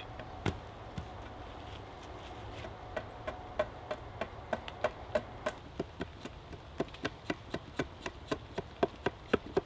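A small axe chopping into a wooden pole held on a post top. It strikes twice, then from about three seconds in keeps up a quick run of short, sharp chops, about three a second.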